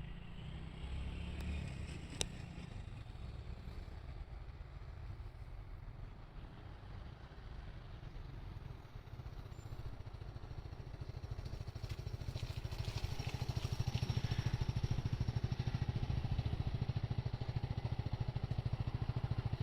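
Low rumble of a passing vehicle that grows louder from about halfway through, taking on a fast, even pulsing, with some light clatter.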